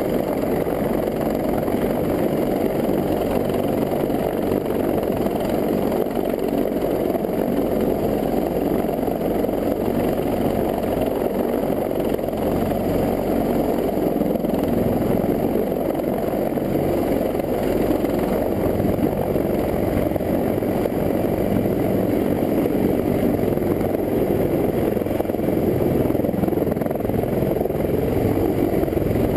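CH-53E Super Stallion heavy-lift helicopter flying with an underslung load: a steady drone of rotors and engines that gets a little louder near the end as the helicopter comes closer.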